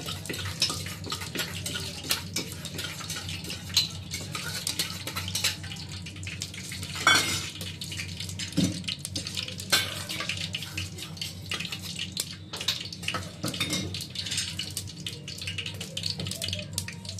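A metal spoon clinking against an aluminium pot a few times, one clink ringing about seven seconds in, while mustard oil heats in the pot. A fine, light crackle and a steady low hum run underneath.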